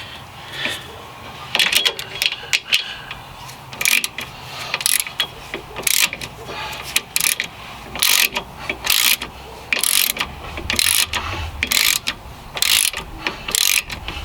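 Hand ratchet wrench being worked back and forth in short strokes, clicking about once a second, tightening the bolts of a new rear hub assembly.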